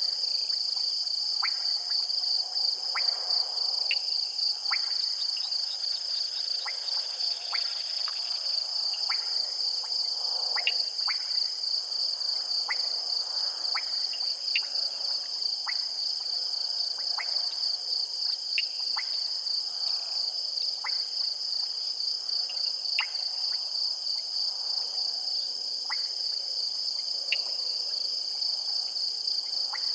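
Night insect chorus: a steady, high-pitched pulsing trill that does not let up, with short sharp clicks every second or two.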